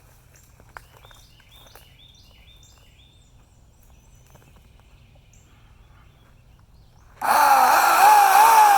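Homelite electric chainsaw, quiet at first with only a click and a few faint chirps, then its electric motor starting suddenly near the end and running loudly, its pitch dipping and recovering over and over.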